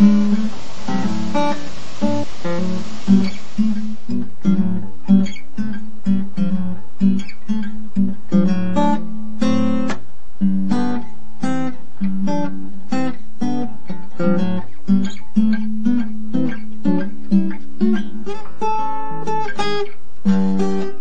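Background music: strummed and picked acoustic guitar, with a hiss underneath for the first few seconds.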